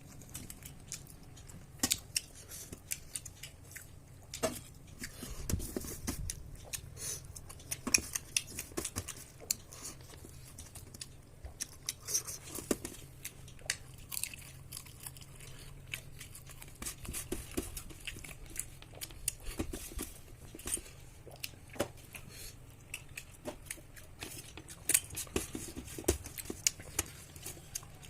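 Close-up eating sounds of a person eating rice with curry: chewing, with many small irregular clicks and crunches.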